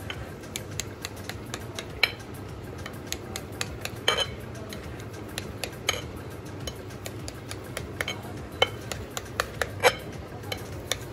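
Kitchen knife cutting through coconut-topped halwa in a glass dish, its blade clicking and tapping against the glass many times at an irregular pace, over a steady low hum.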